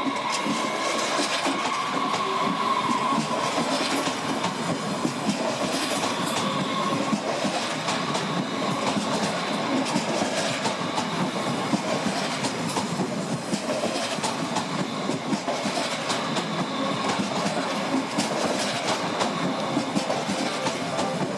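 S-Bahn electric multiple unit pulling out and rolling past close by: a steady rumble of wheels on rail with scattered clicks over the rail joints. A steady high hum during the first several seconds.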